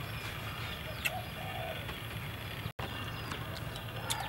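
Small birds chirping and a dove cooing softly about a second in, over a steady low background rumble. The sound drops out for an instant about two thirds of the way through.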